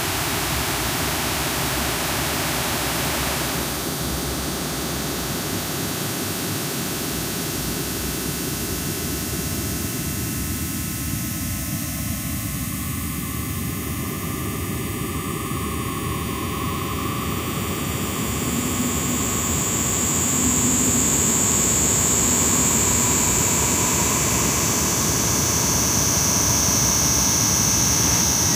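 Industrial noise music: a dense, steady wall of hiss and rumble like a jet engine. The hiss grows brighter a few seconds in, and about two thirds of the way through a high whistling tone enters and slides slowly down in pitch as the noise gets a little louder.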